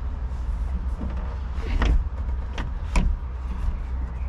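A few sharp knocks and clicks as a B4 Passat sunroof glass panel is pushed and seated into a VW Corrado's sunroof frame, three of them about two to three seconds in, over a steady low rumble.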